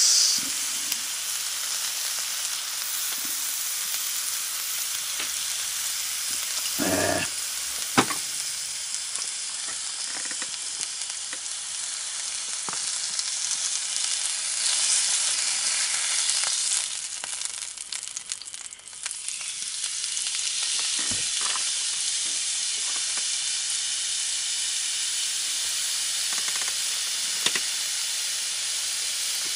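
Meat frying on a hot grill plate: a steady sizzle, with a couple of short knocks about seven and eight seconds in and another around twenty seconds.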